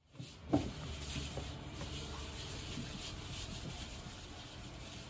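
Hands rubbing and tossing crumbly buckwheat flour in a large stainless steel bowl, a steady scratchy rubbing with repeated strokes, as the flour is mixed for soba noodles. A single knock about half a second in.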